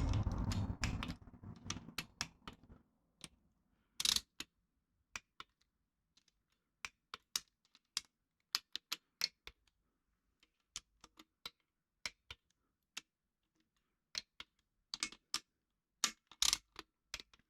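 Harbor Freight 1/4-inch-drive click-type torque wrench ratcheting in short runs of sharp clicks as oil pump bolts are run down and tightened, with a short rustling noise in the first second.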